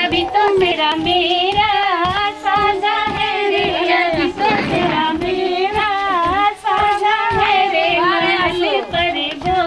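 Female voices singing a song over a steady, quick percussive beat.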